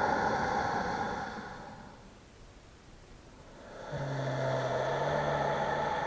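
Ujjayi (ocean) breathing: long, rushing breaths drawn through a slightly constricted throat with the mouth closed. The first breath fades out about two seconds in. After a pause, a second breath starts about four seconds in, with a faint low hum from the throat for part of it.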